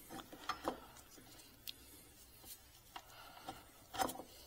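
Motorcycle front brake caliper being slid over a new brake disc: faint, scattered metallic clicks and light knocks, the loudest near the end.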